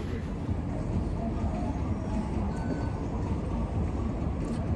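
Steady low rumble of restaurant room noise, without distinct events.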